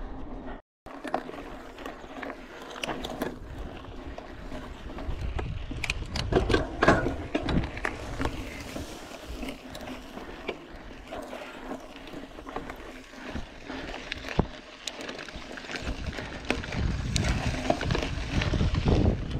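Mountain bike ridden over a rough dirt trail: wind buffeting the camera's microphone, tyre rumble, and frequent rattling knocks from the bike, getting louder near the end.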